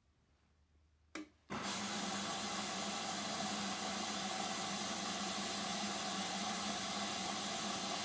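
A click, then the Hoover Dynamic washing machine's water inlet opens and water rushes in to fill for a Delicate 40 wash: a steady hiss with a low hum underneath that starts suddenly about a second and a half in.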